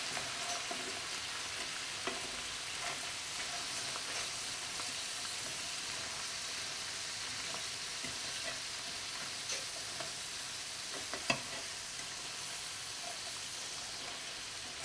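Langoustines sizzling in a frying pan over a turned-down gas flame, a steady hiss, with a few clicks of a utensil against the pan as they are turned, the loudest about eleven seconds in.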